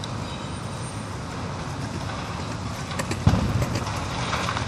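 Crawler crane's engine running steadily, then about three seconds in the wrecking ball hits the brick wall with a heavy thud, followed by the clatter of falling bricks and debris.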